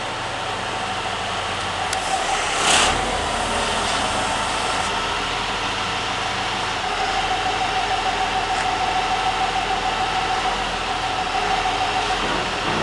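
Diesel engine of a 2002 Mait HR130 drilling rig running steadily, with a steady whine over it for most of the time and one short hiss about three seconds in.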